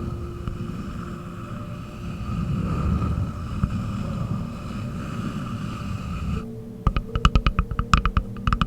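Hands working a wooden surface for ASMR: first a dense, low, continuous rumble of rapid muffled contact, then, after an abrupt change about two-thirds of the way in, crisp separate taps on wood in quick irregular flurries.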